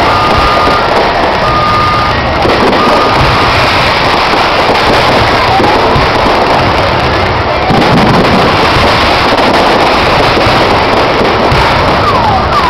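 Fireworks display: a loud, continuous crackle of bursting shells, with a few short whistles gliding over it.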